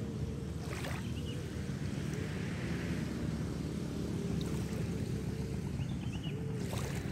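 Steady low rumble of a boat engine running, with a few faint, brief high chirps now and then.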